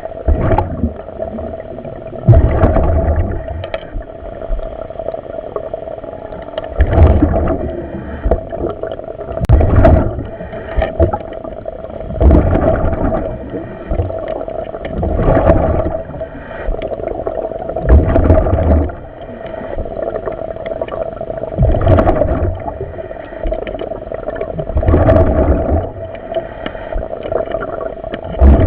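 A commercial diver breathing on surface-supplied air, heard over the dive radio: a rush of air and bubbles every two to three seconds over a steady hum.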